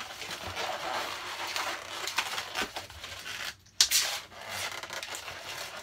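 Latex 260 modelling balloons rubbing against each other and the hands as they are twisted and wrapped together, with a short, sharper rub just before four seconds in.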